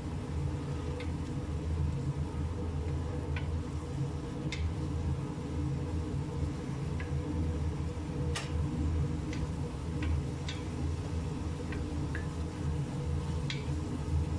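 Wooden spoon knocking and scraping against the inside of an aluminium pressure-cooker pot as meat is stirred: about a dozen irregular sharp taps, the loudest a little past halfway, over a steady low hum.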